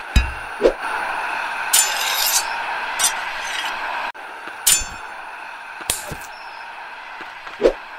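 Sword-fight sound effects: a run of sharp metallic clinks and clangs of blades and shields striking, about eight hits spread irregularly, over a steady background ambience that drops away about four seconds in.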